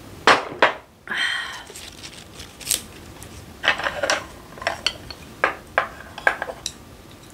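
A few sharp mouth and breath sounds right after a shot of soju, then a small glass set down on the table and a string of light clicks as chopsticks are picked up and tapped even.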